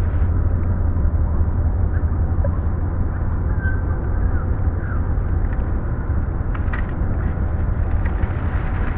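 Outdoor ambience field recording on a Nagra 4-S reel-to-reel tape recorder, played back at reduced tape speed so everything is pitched down: a dense, dark rumble with a strong low hum. A few short, lowered chirps and faint clicks sound over it.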